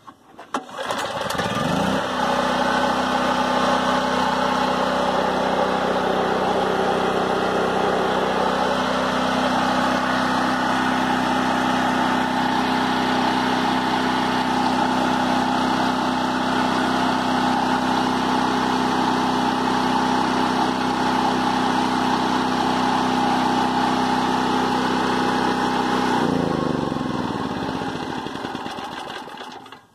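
DeWalt DXGNR4000 4,000-watt gasoline portable generator pull-started on its recoil starter. The engine catches about half a second in and comes up to a steady running speed. It runs evenly, then near the end is shut off and winds down with falling pitch.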